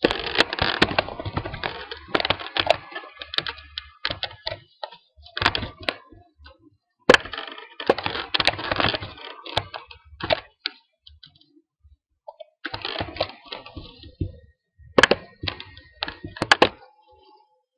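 Computer keyboard typing with mouse clicks, in quick runs of keystrokes broken by short pauses.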